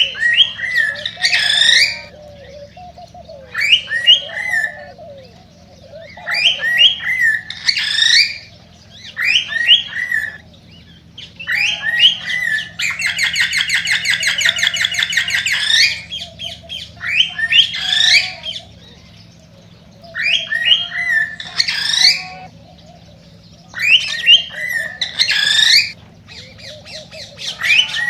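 Male cockatiel singing its excited courtship song: short whistled phrases with rising notes, repeated about every two seconds, and a long, fast chattering trill about halfway through.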